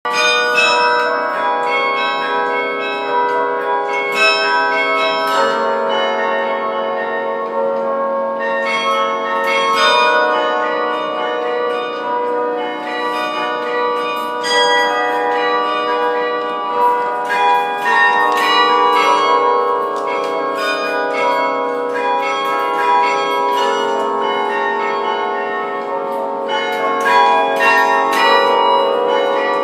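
Carillon bells played from the baton keyboard: a melody of many tuned bronze bells struck in quick succession, each note ringing on and overlapping the next.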